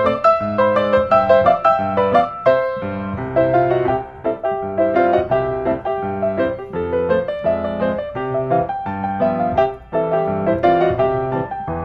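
Background piano music: a melody over chords.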